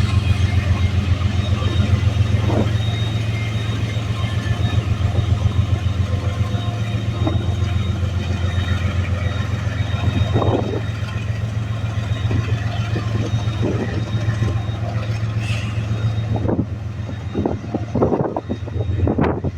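Diesel freight locomotive's engine running with a steady low rumble and a fast even pulse, with scattered knocks that come more often near the end.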